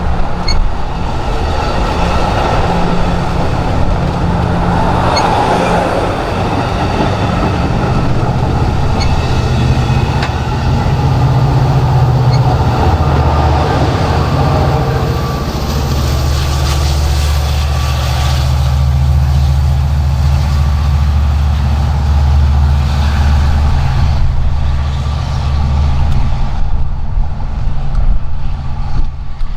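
Train passing with a diesel locomotive's engine running, a steady low drone. Rolling noise fills the upper range at first, then thins out about halfway through while the engine drone grows heavier.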